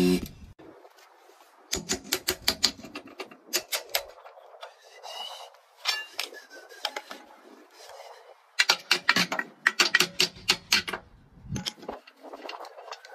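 Rapid metallic clicking and clinking in several short bursts, from steel tyre-changing tools being handled and set down on a metal mat.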